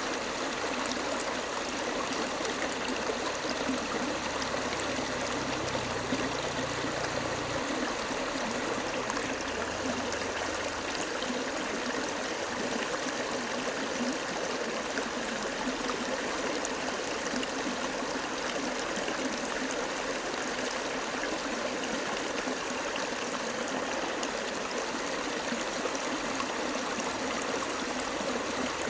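Flowing water running steadily, with no breaks or changes.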